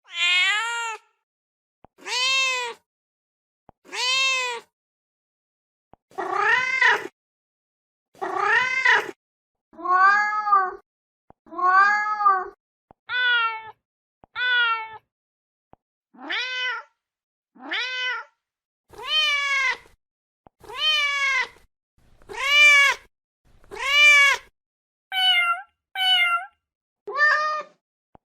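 Mother domestic cat meowing over and over, calling for her kittens: a long series of separate meows, one every second or two, each rising and then falling in pitch.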